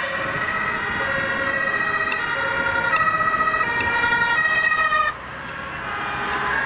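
German two-tone emergency siren (Martinshorn) on a passing Volkswagen Caddy emergency vehicle, alternating between two pitches and growing louder as it comes close. It cuts off suddenly about five seconds in, leaving engine and tyre noise.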